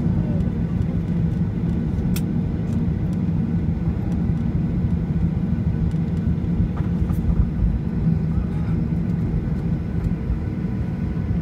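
Cabin noise of a jet airliner taxiing after landing: a steady low rumble from the idling engines and the rolling aircraft, with a faint click about two seconds in.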